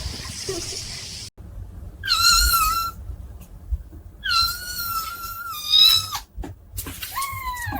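A cat meowing three times: a short meow, a long drawn-out one, then a short one falling in pitch, after a hissing noise in the first second.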